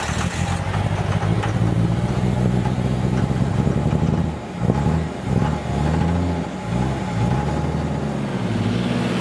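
A motor vehicle engine running and revving, its pitch changing in steps several times, with short drops in loudness about halfway through.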